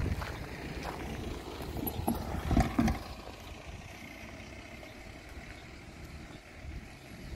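Footsteps on a tarmac road with a low rumble, a few heavier thumps about two and a half seconds in, then the steps stop and only a faint steady outdoor background remains.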